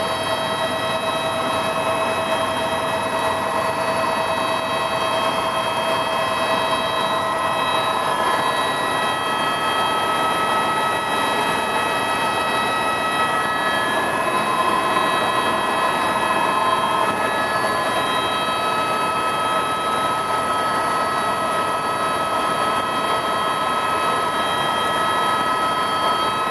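Helicopter in cruising flight, heard from inside the cabin: steady rotor and engine noise with several constant high-pitched turbine whines.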